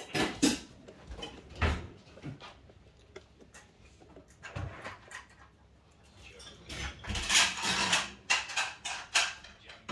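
A few knocks and bumps in the first two seconds, then a couple of seconds of loud rattling clatter near the end as a slatted window blind is pulled up by its cord.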